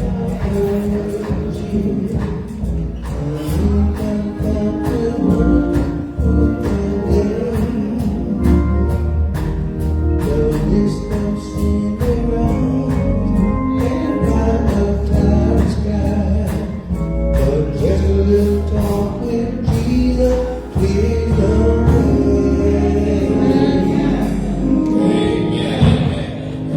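Gospel music: voices singing over instrumental accompaniment with a steady beat.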